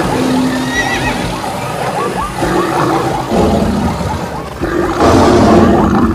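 A layered soundtrack of animal calls from many animals at once, with short repeated chirping calls in the mix, growing louder about five seconds in.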